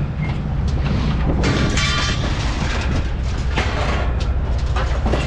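Steady low vehicle rumble with loose metal clanking and rattling over it, the loudest clatter about a second and a half in, with a brief metallic ring.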